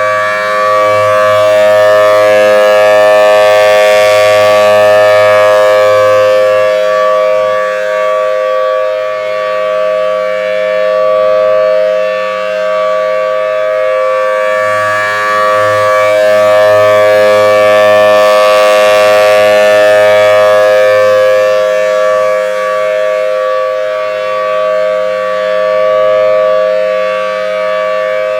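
Federal Signal Thunderbolt 1000T Series B outdoor warning siren sounding a steady alert tone. Its pitch holds steady while its loudness swells and fades about every 15 seconds as the rotating head sweeps past, peaking about four and nineteen seconds in. The siren sounds healthy.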